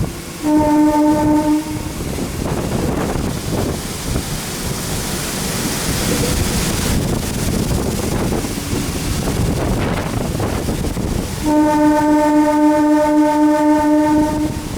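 MEMU train's horn sounding twice, a short blast about half a second in and a long one of about three seconds near the end. Between them the train runs along the track with a steady rumble.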